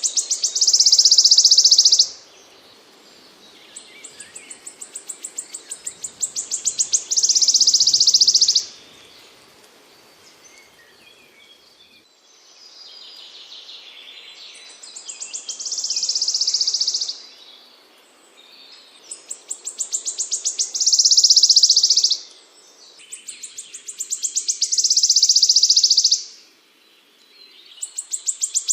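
A small songbird's song: phrases of quickening high ticks that run into a dense, buzzing trill and stop abruptly, repeated about every four to five seconds, six times.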